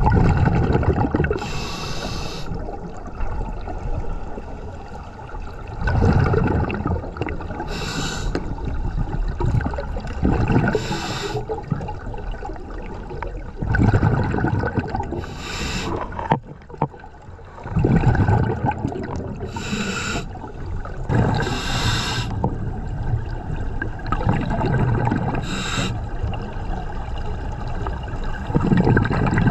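Scuba diver breathing through a regulator underwater: a low rumble of exhaled bubbles every few seconds, with short hissing inhalations through the regulator between them.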